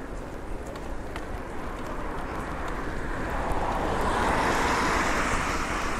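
A car passing on a wet road: its tyre hiss swells to a peak about four to five seconds in, then eases. Under it runs a steady low rumble of wind on the microphone from the moving bike.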